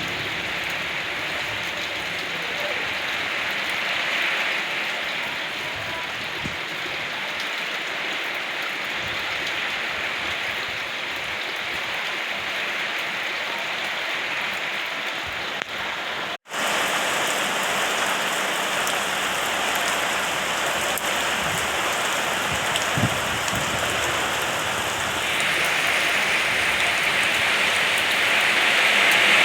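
Steady rain falling on surfaces, an even hiss of drops. It cuts out for an instant a little past halfway and grows louder near the end.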